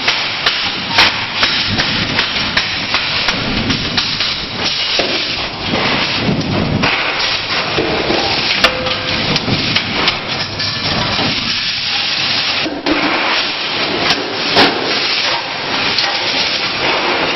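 Spot welding of sheet steel in a workshop: a loud, continuous rushing hiss with a few sharp cracks at irregular intervals.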